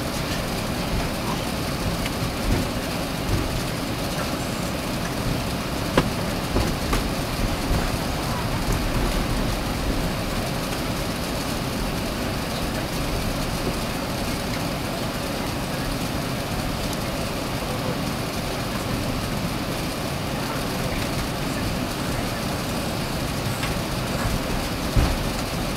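Steady cabin noise inside an Airbus A380 taxiing after landing: an even rumble and hiss. There is a sharp click about six seconds in and a knock near the end.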